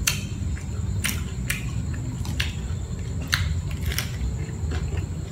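Close-up eating sounds: chewing a fresh rice-paper roll with crisp raw vegetables, giving irregular sharp clicks about every half second. A steady low hum runs underneath.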